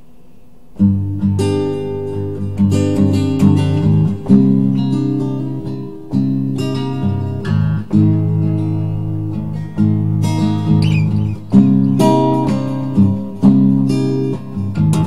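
Acoustic guitar playing chords, coming in suddenly about a second in after near silence, each chord struck sharply and left to ring.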